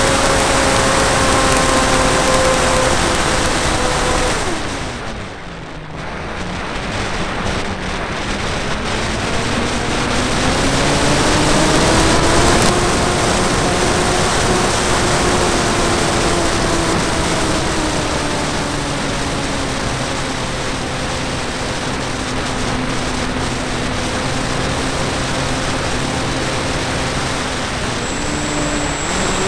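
Whine of an RC flying wing's motor and propeller heard from on board, over a steady rushing noise. The pitch drops and the sound fades about five seconds in as the throttle comes back, then climbs again to a peak and slowly eases down.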